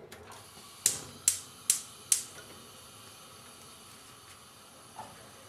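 Gas hob's electric spark igniter clicking four times, about 0.4 s apart, as the burner under the saucepan is lit, over a faint steady hiss of gas; a small knock near the end.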